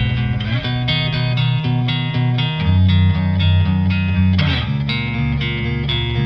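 Background music with plucked guitar over a bass line.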